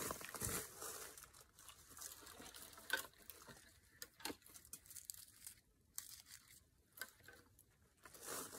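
Close handling noise: rustling with scattered light clicks and scrapes as a brown deer shed antler is turned in the hand near the microphone, loudest in the first second and again near the end.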